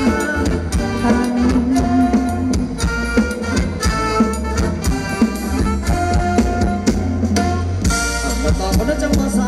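Live Thai ramwong dance band playing an instrumental passage with no singing: a steady drum beat and bass under a melody of held notes.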